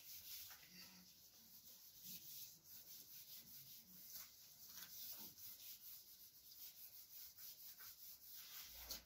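Faint rubbing of a handheld whiteboard eraser wiped across a whiteboard in repeated strokes.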